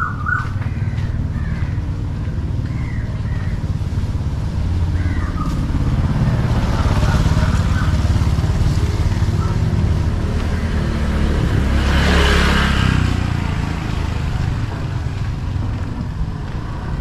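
Motor scooter engine running close by, growing louder through the middle and loudest about twelve seconds in before easing off.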